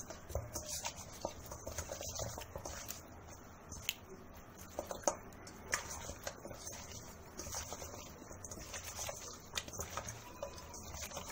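A hand kneading raw chicken pieces with salt and food colouring in a metal bowl: quiet, irregular wet squelching and patting, with scattered small sharp clicks.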